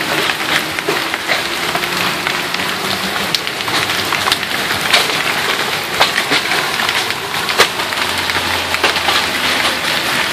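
Hailstones pelting down in a steady hiss, with frequent sharp cracks as larger stones strike hard surfaces. A low hum joins near the end.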